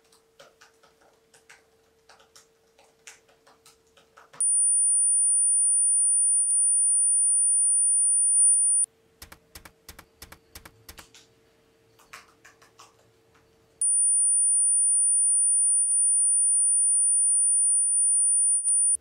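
Faint clicking of typing on a laptop keyboard, cut off about four seconds in by a loud, steady, very high-pitched electronic tone that holds for about four and a half seconds. The typing comes back, and then the same tone returns near the end and holds to the close.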